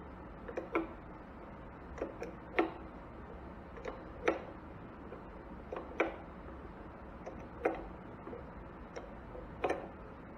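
Metal clinks of an open-end wrench being re-seated on the suction tube's threaded fitting of a hydrostatic transmission, as the nut is tightened a few degrees at a time. The clicks come every one to two seconds, often as a quick pair.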